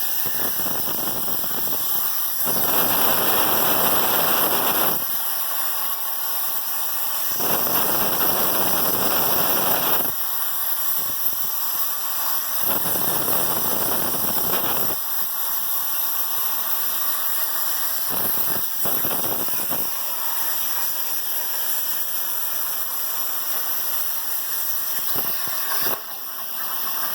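CNC plasma cutter torch hissing steadily, with three stretches of a few seconds each where a louder rushing noise comes in over the hiss.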